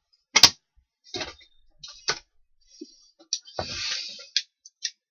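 A run of about eight hard clicks and knocks of tools being handled, the loudest about half a second in, with a brief scraping rustle around three and a half seconds in.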